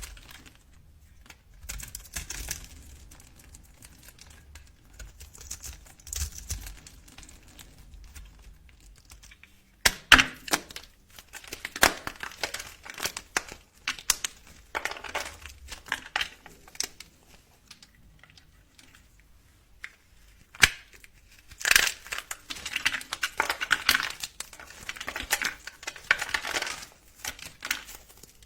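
Dry bar soap being cut and crumbled: crisp crackling and crunching that comes in runs, with a sharp crack about a third of the way in. It is quieter and scratchier in the first part.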